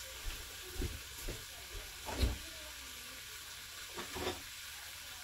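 Faint steady hiss from a saucepan of cut strawberries heating over a low gas flame, with a few soft knocks. The loudest knock comes a little over two seconds in.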